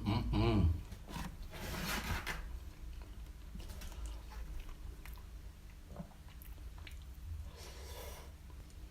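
Close-miked chewing and biting of a halal snack pack of doner kebab meat, melted cheese and sauced chips, with louder crunches about two seconds in and near the end. A short hum from the eater's voice right at the start.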